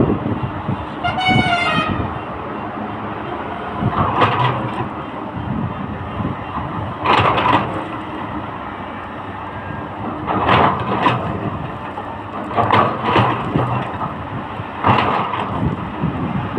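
Heavy excavator working, its engine running under repeated loud metallic scraping and clanking bursts. A short vehicle horn toot sounds about a second in.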